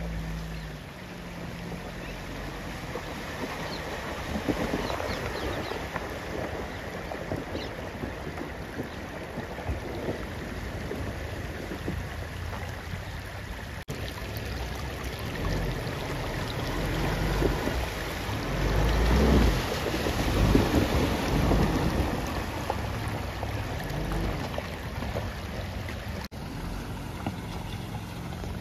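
Off-road SUV engine running under load while the tyres churn and splash through wet mud and water, with wind on the microphone. It gets louder in surges about two-thirds of the way through.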